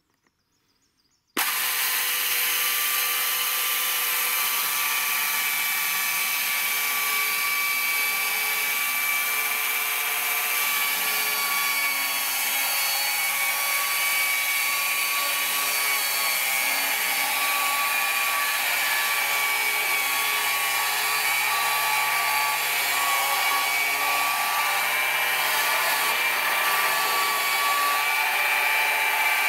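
Electric chainsaw on a chainsaw sawmill, switched on and then running steadily at full speed, cutting lengthwise through a log. The sound starts abruptly about a second and a half in, a constant motor whine over the chain's rasp.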